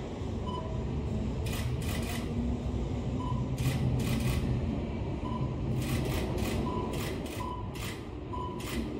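JR East 205 series electric train running past, its wheels clicking over rail joints in quick pairs, one pair every second or two, over a steady low rumble.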